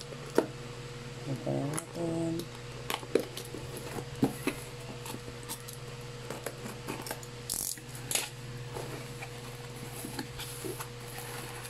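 A small blade slitting packing tape on a cardboard box: scattered clicks, scrapes and tape crackles. The cardboard flaps are then pulled open with short rustles. A steady low hum sits underneath.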